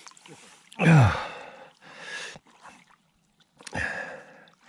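A man's loud, heavy sigh about a second in, a breathy exhale falling in pitch, from a man who feels lightheaded. Softer breathy noises follow twice.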